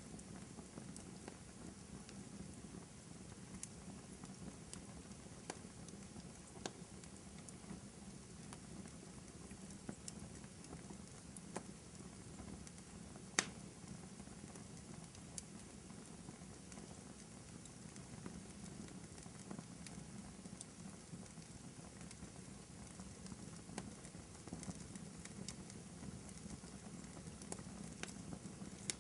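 Wood fire crackling in a fireplace: a steady low hiss with scattered sharp pops and snaps, one louder pop about halfway through.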